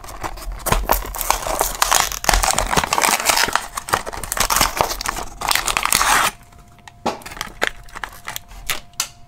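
A Matchbox die-cast car's packaging being torn open and crinkled, a dense crackling run for about six seconds, then a few lighter clicks and taps.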